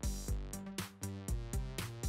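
Electronic background music with a steady beat of about two hits a second over sustained pitched notes.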